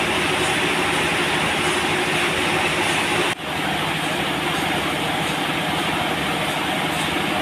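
Sawmill machinery running steadily, with a brief drop in level about three and a half seconds in.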